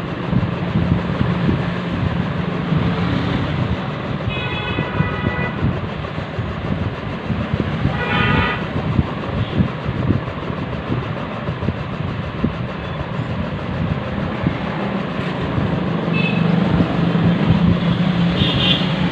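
Steady rumble of traffic with vehicle horns tooting briefly about four times: around 4 and 8 seconds in, again near 16 seconds, and just before the end.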